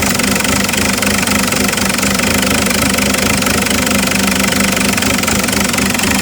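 Isuzu 4JX1 3.0-litre four-cylinder turbo-diesel idling with a rapid, steady diesel clatter. This is the rough idle the owner is chasing.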